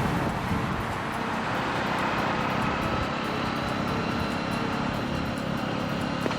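A road vehicle on the move: steady engine and road noise.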